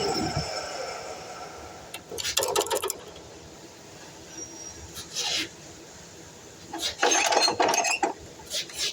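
DeWalt miter saw's motor spinning down after a cut, its pitch falling and fading over about a second. Then several short scrapes and knocks of the workpiece being handled and repositioned, about two seconds in, near five seconds, and around seven to eight seconds.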